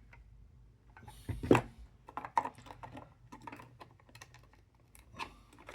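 Small clicks, taps and scrapes of puzzle box pieces being handled and worked loose by hand, with a louder scrape about a second and a half in.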